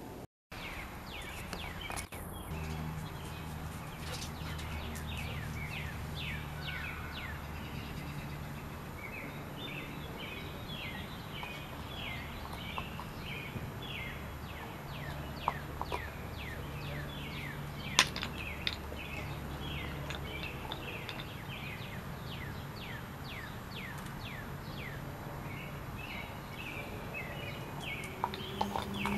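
Songbirds chirping, many quick falling chirps one after another, over a low steady hum that fades out about two-thirds of the way through. A few sharp clicks, the loudest about eighteen seconds in.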